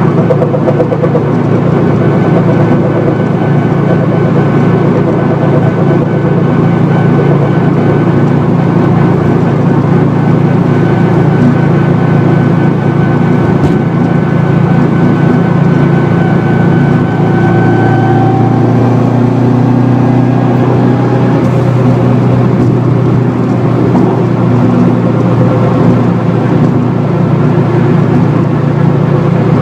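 2004 Subaru WRX STI at freeway speed: a loud, steady low drone from a failed wheel bearing, with a humming rear-differential whine over it, made louder by upgraded bushings and mounts. The whine's pitch shifts a little about two-thirds of the way through.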